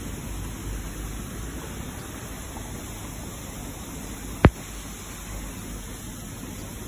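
Steady background noise with a low rumble, broken once by a single sharp click about four and a half seconds in.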